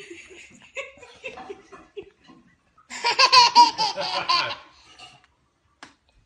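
Baby laughing: a few soft sounds at first, then a loud burst of laughter about three seconds in, lasting about a second and a half.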